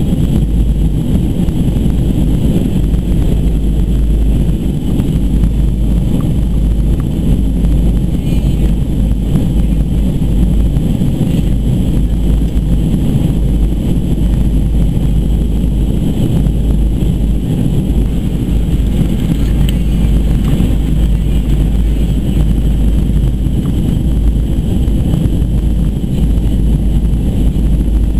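Cabin noise inside a Boeing 737-200 Advanced in flight: the steady, loud, deep sound of its Pratt & Whitney JT8D turbofan engines and the air rushing past the fuselage.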